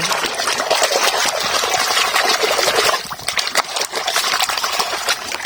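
Water running and splashing over a muddy toy as it is rinsed and scrubbed clean, a little quieter after about three seconds.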